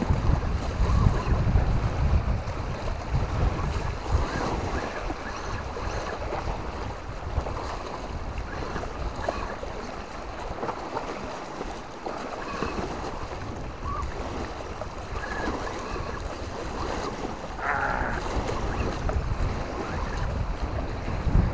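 Wind buffeting the microphone in gusts, heaviest at the start and again near the end. Faint scattered ticks and scrapes sound in between.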